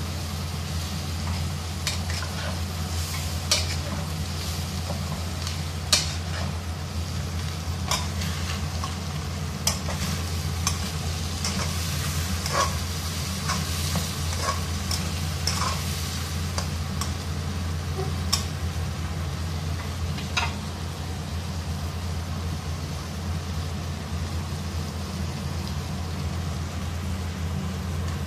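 A spatula stirs and scrapes green peas and meat in a stainless steel wok, with sharp clicks and scrapes against the pan over a light frying sizzle. The clicks thin out after about twenty seconds. A steady low hum runs underneath throughout.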